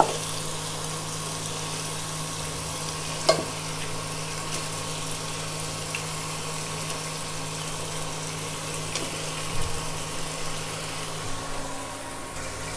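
Spice paste frying in a pan with a steady sizzle as pieces of raw rohu fish head are laid in, with a sharp knock about three seconds in.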